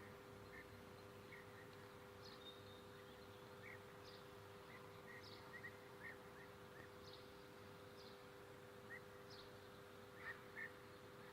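Faint birds chirping: short, scattered high notes every second or so. A steady low hum runs underneath.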